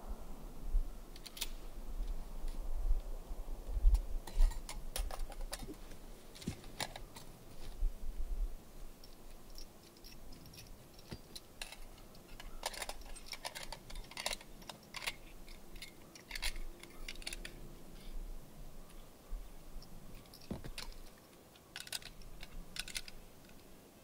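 Irregular small metallic clicks and ticks from handling a rifle and its scope between zeroing shots, some in quick runs and the loudest about four seconds in, over a low rumble.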